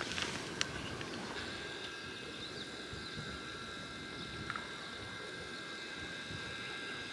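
Water poured from a plastic bottle into a pot for cooking rice, beside a steady high whine of several tones that starts about a second and a half in and stops abruptly near the end.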